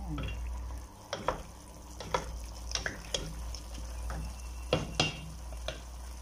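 A wooden spatula stirring a chunky chicken stew in a stainless steel pot, with irregular scrapes and knocks against the pot over a steady low hum.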